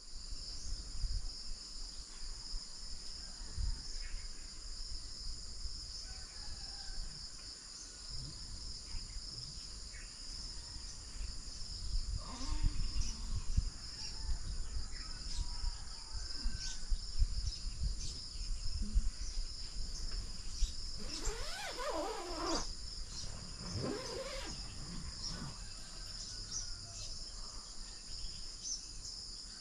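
Steady high chirring of night insects, with a few sliding animal cries about twelve seconds in and again around three quarters of the way through.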